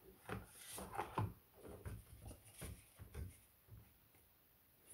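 Cardboard packaging being handled: a box slid out of its sleeve, with a string of soft scrapes and light knocks that stop about three and a half seconds in.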